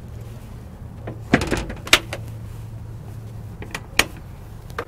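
Rear engine-compartment door of a school bus being swung shut: a clatter of knocks about a second and a half in, then a sharp bang at two seconds. A single sharp click of the latch follows at about four seconds, over a steady low hum.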